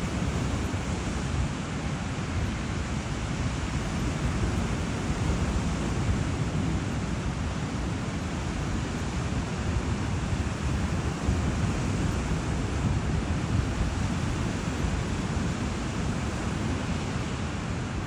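Ocean surf washing on a beach, a steady rush of noise, with wind buffeting the microphone.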